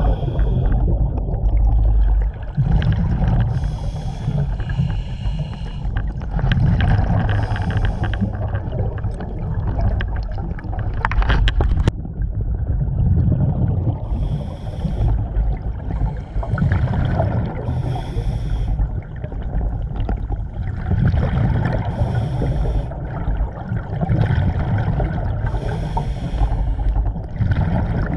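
Scuba diver's breathing heard underwater: regulator breaths and exhaled bubbles coming back in a cycle about every three to four seconds, over a steady low rumble.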